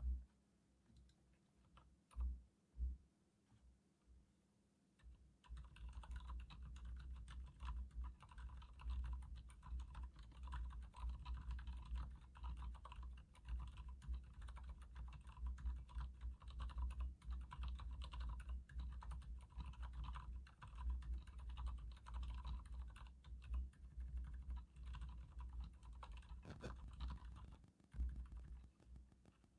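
Leopold FC900R mechanical keyboard with Cherry MX Silent Red (low-noise linear) switches being typed on. A few separate keystrokes come first, then steady, fast typing from about five seconds in.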